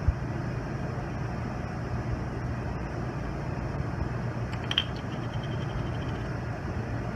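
Steady background hum in a lab room, with a light click right at the start and another about five seconds in as plastic conical tube caps are unscrewed and put down on the bench.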